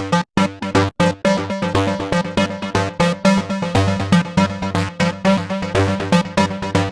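Self-made electronic background music built on a Serum software synthesizer: rapid, chopped synth chords over a steady pulse, cutting out for an instant twice near the start.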